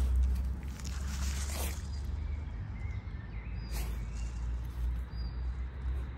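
Jack Russell terrier digging with its nose in a hole in the ground, snuffling and scraping at the soil in a few short rushes of noise, about a second in and again near four seconds. A steady low rumble lies beneath, with a few faint bird chirps.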